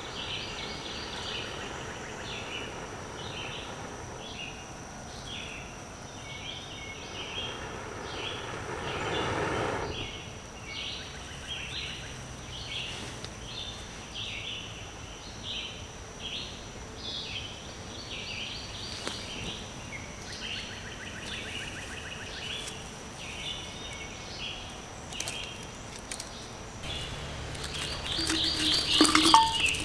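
Birds calling in repeated short chirps over a steady high insect tone, while breaths blow into a smouldering tinder bundle, the blowing swelling about eight to ten seconds in. Near the end, chunks of punk wood knock and clink against a stainless steel container.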